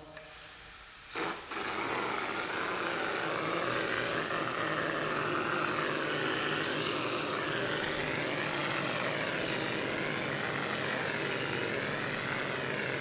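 Air-fed stucco spray gun spraying acrylic stucco mix onto a wall panel: a continuous, steady hiss of air and spray.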